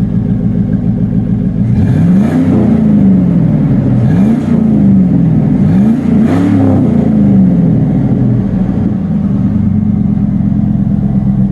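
Pickup truck engine running through a newly installed dual exhaust, idling, then revved three times, each rev rising and falling in pitch, before settling back to a steady idle. The exhaust note is loud, with little umps to it.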